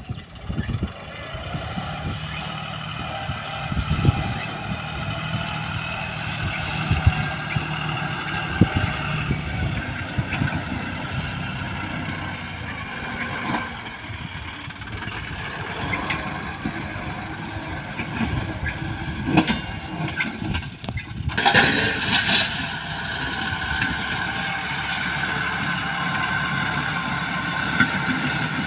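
John Deere tractor's diesel engine running steadily under load, pulling a disc plough through dry soil, with scattered knocks and clatter from the discs and clods.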